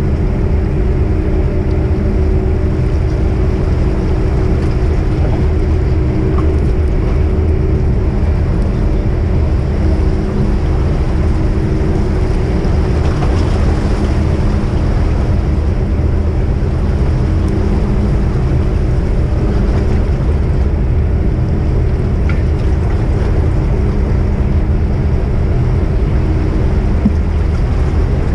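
Car ferry's diesel engines running with a steady low drone as the ship manoeuvres at its berth.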